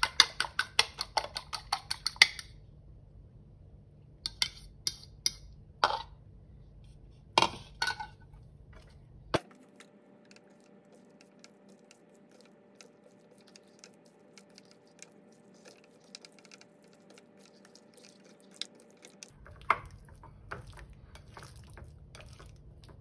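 A fork beating egg in a small bowl, clinking against its side about four times a second, stops about two seconds in. Then scattered clinks and taps of utensils against the bowl and plate, and quiet mixing of the chicken pieces with chopsticks, with a few more clinks near the end.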